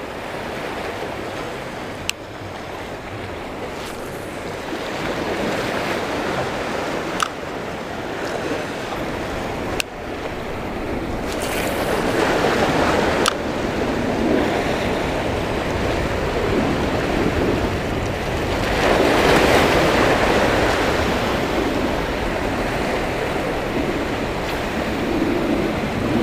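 Small ocean waves washing and breaking over rocks, a steady wash that swells twice as larger surges come in, with a few faint clicks.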